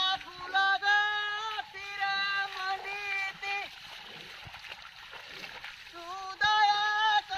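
A high voice singing long held notes with no accompaniment, in two phrases with a pause of a few seconds between them. Faint splashing is heard in the pause.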